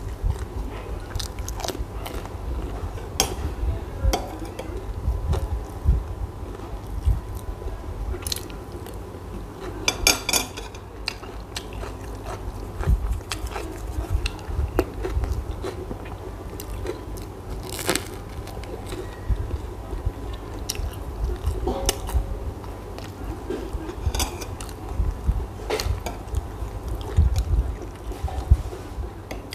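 A person biting and chewing a bread roll, mouth sounds picked up close by a clip-on microphone, with many small sharp clicks. Near the end a spoon scrapes and taps in a glass bowl of sauce.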